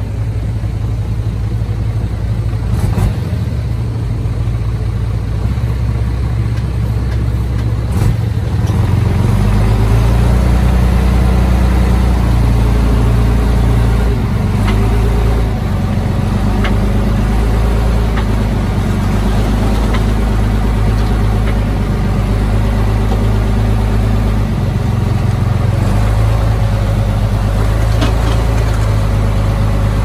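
Heavy earthmoving machine's diesel engine running steadily, working harder from about a third of the way in, with a few sharp knocks.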